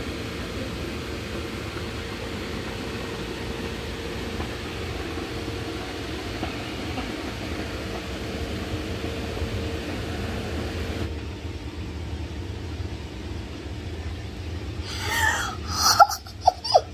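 Electric air blower running steadily as it inflates an inflatable bounce house: a constant hum with a steady tone, which drops a little about eleven seconds in. Near the end a young child gives a few short, loud, excited squeals.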